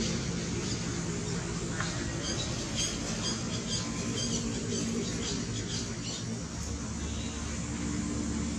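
Baby long-tailed macaque giving a run of short, high-pitched squeaks, several a second, for a few seconds in the middle, over a steady low background hum.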